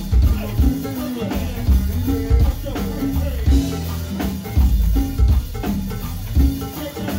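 Live go-go band playing: drum kit and congas over a heavy, steady bass-drum beat.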